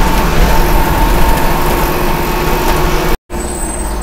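MSRTC bus engine running steadily under road noise, with a steady whine over a heavy low rumble. The sound cuts out abruptly for a moment about three seconds in.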